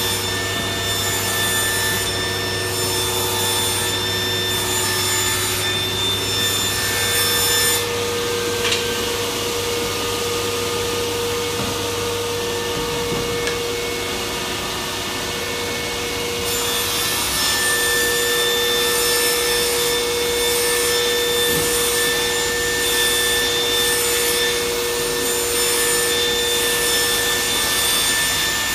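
Woodworking workshop machinery running with a steady drone, with wood being sawn and rubbed. The sound changes character about 8 seconds in and again about 16 seconds in.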